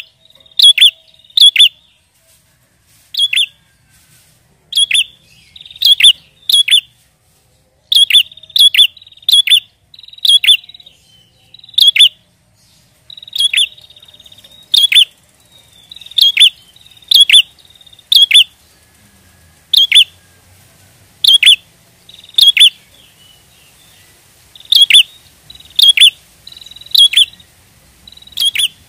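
Prinia (prenjak) calling: loud, sharp, clipped notes, each dropping at the end, given singly or in quick pairs and threes about once or twice a second, with a fainter buzzy trill between some of them.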